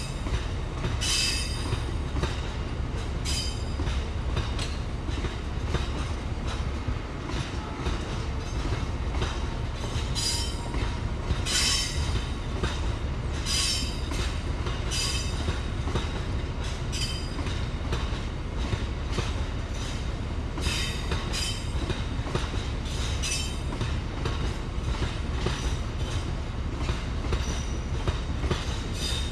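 Slow-moving freight train of open box wagons loaded with aggregate rolling past, with a steady low rumble and wheel clatter. Short high-pitched squeals come through every second or few.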